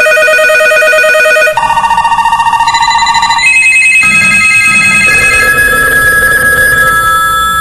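Several telephones ringing at once with electronic warbling rings, one ring tone giving way to another about a second and a half in and again around three and a half and four seconds in, the rings overlapping.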